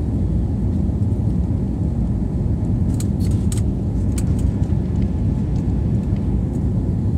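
Steady, deep cabin noise of an Airbus A320-family jet airliner climbing: engine and airflow noise heard from inside the passenger cabin. A few faint clicks come through about three to four seconds in.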